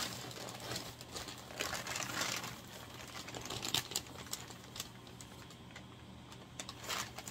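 Brown packing paper rustling and crackling as it is pulled apart by hand to unwrap a parcel, with many irregular crisp crackles, busiest about two seconds in.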